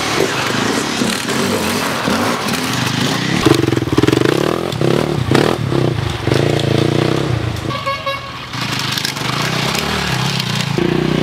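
Enduro motorcycle engines revving as the riders pass one after another, the engine note rising and falling in pitch as they accelerate and back off.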